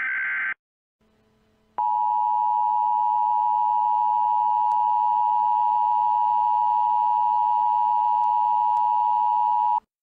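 The tail of an EAS SAME header data burst, a brief buzzy warble, then about a second of near quiet. The EAS two-tone attention signal (853 and 960 Hz sounded together) follows, steady for about eight seconds and cutting off abruptly, the alert tone that precedes the spoken warning message.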